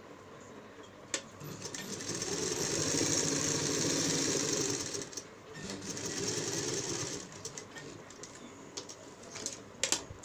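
Domestic sewing machine stitching a corner seam in two runs: a longer one of about three seconds, a brief pause, then a shorter one. A few light clicks follow near the end.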